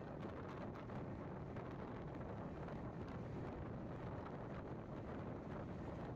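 Steady low rumble of wind buffeting the microphone, with faint crackle.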